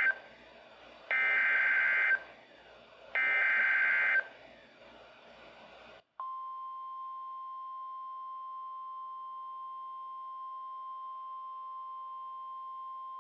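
Emergency Alert System activation from a Midland WR120BEZ weather radio: the end of one burst and then two more one-second bursts of SAME header data tones, then after a short gap the steady 1050 Hz NOAA Weather Radio warning alarm tone begins about six seconds in and holds. The sequence marks the start of a new warning broadcast.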